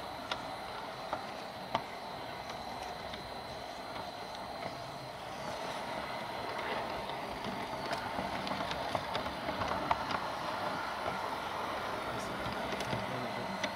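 LGB garden-scale model train running along its track, heard from on board: a steady rolling rumble with occasional clicks and a thin high whine during the first few seconds. It gets a little louder about five seconds in.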